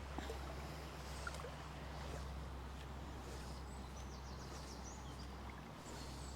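River water running steadily over a shallow stony bed, with a small bird's brief high trill about four seconds in.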